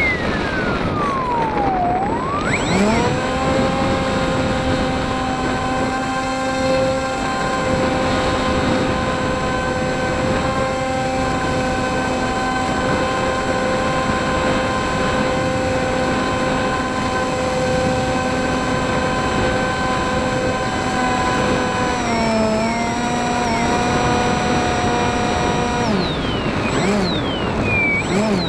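RC model plane's motor and propeller, heard from the plane's onboard camera over a steady rush of air. The whine falls at the start, climbs back a few seconds in and holds steady, dips briefly about three-quarters of the way through, and falls again near the end as the throttle is eased back and forth.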